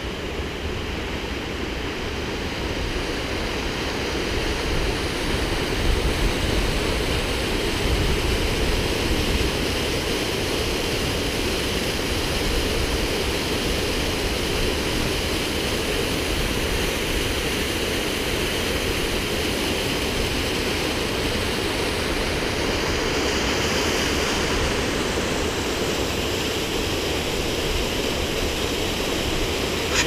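Steady rush of a waterfall cascading over rocks: a constant, loud noise with a deep rumble underneath.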